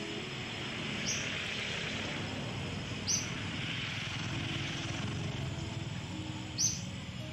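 Steady outdoor rushing noise, with three short high-pitched bird chirps about a second in, about three seconds in and near the end.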